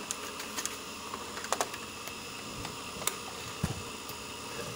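Scattered plastic clicks and knocks as an inkjet printer's power supply module is pried out of its bay in the printer's plastic underside, a few sharp ticks spread over a steady hiss.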